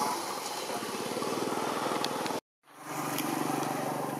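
A motor engine running steadily with an even, pulsing hum. It cuts out to silence for a moment a little past halfway, then comes back.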